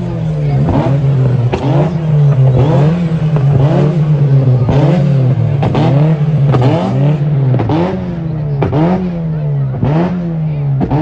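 Car engine revved over and over in a steady rhythm, a little more than once a second, each quick rise in engine pitch followed by a drop.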